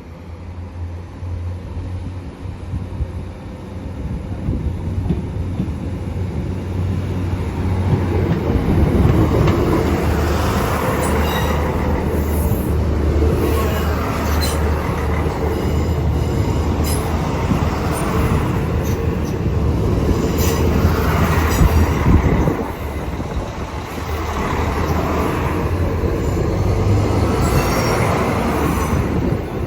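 A Northern Ireland Railways diesel multiple unit passing close by. Its engines hum low and steady, and its wheels click and squeal over the rails. The sound builds over the first few seconds, stays loud for a long stretch, then eases slightly.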